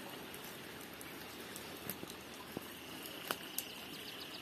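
Rainwater runoff flowing steadily across the ground after a heavy downpour, with a few light clicks. A faint high steady tone joins about three seconds in.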